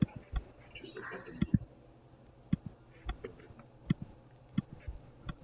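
Computer mouse and keyboard clicks, sharp single clicks spaced irregularly about every half second to a second, made while editing values in a tuning-software table.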